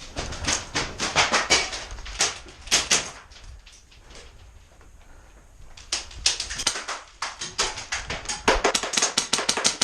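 Airsoft guns firing in short strings of rapid sharp clicks. A lull comes midway, then a fast even string of several shots a second near the end.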